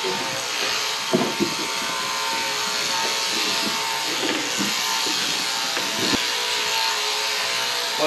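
Sheep-shearing handpieces buzzing steadily as fleece is cut off the sheep, with a couple of sharp knocks about a second in.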